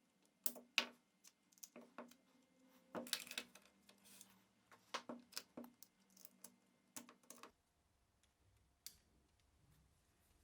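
Irregular sharp clicks and light clinks of small hard parts being handled and set down, with a dense cluster about three seconds in and one last click near the end.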